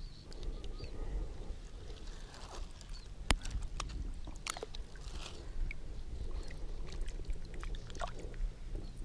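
Small water splashes and sloshing with scattered handling clicks as a tilapia is put into a floating keepnet; one sharp click about three seconds in.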